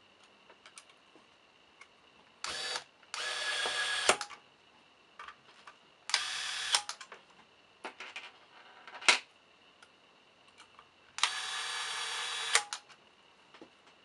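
Corded electric screwdriver driving small screws into the metal housing of a fingerprint keypad lock, running in four short spurts: two in the first few seconds, a brief one in the middle and a longer one near the end. Several sharp clicks fall between the runs.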